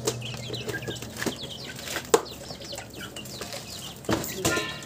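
Chickens clucking and small birds chirping, with a few sharp metal clinks, the loudest about two seconds in, as a synchronizer ring and gear are fitted by hand onto a Suzuki Multicab manual transmission's mainshaft. A short, higher call comes near the end.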